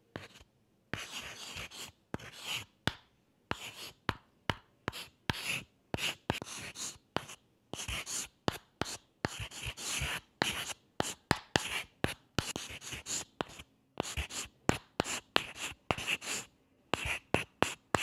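Chalk writing on a blackboard: runs of short scratchy strokes broken by brief pauses, with sharp taps where the chalk meets the board.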